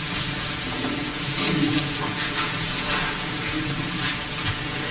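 A congregation rustling and shuffling as hymnal pages are turned: a steady papery hiss with a few brief louder rustles.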